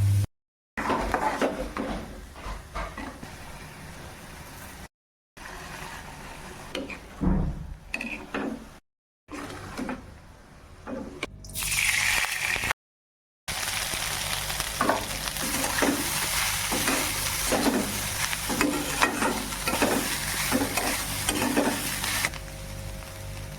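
Kitchen cooking sounds in short cut-together clips: food sizzling in a pan with repeated stirring or scraping strokes, about two a second in the longest stretch.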